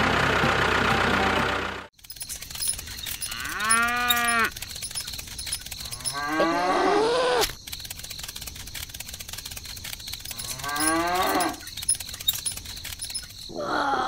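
Music for the first two seconds, then a cow mooing three times, a few seconds apart, each call about a second long. This is a dubbed moo sound effect over a toy cow. A different short vocal sound starts near the end.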